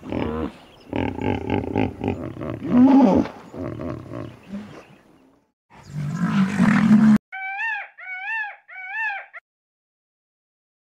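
Rough, low animal grunting and growling that cuts off abruptly about seven seconds in. It is followed by three short calls from a peafowl in quick succession, each rising and falling in pitch.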